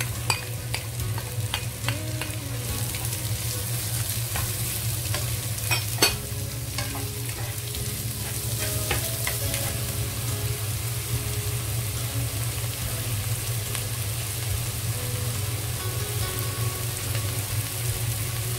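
Chopped red onions and garlic sizzling in olive oil in a non-stick pot as they are stirred, with the utensil clicking and scraping against the pot and one sharper knock about six seconds in. A steady low hum runs underneath.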